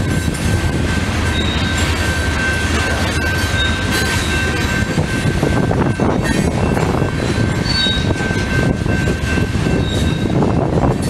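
Loaded rock hopper cars of a freight train rolling past, a steady rumble of wheels on rail. Over it runs a thin, steady squeal from the wheels, with short, fainter higher squeals every couple of seconds.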